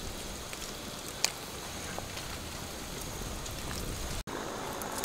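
Wok of soup simmering with a steady bubbling hiss, and a single sharp click about a second in.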